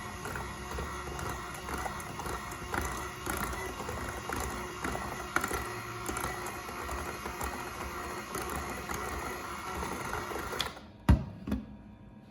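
Background music over a dense layer of small clicks and ticks, cutting off sharply near the end. Two loud knocks follow about half a second apart.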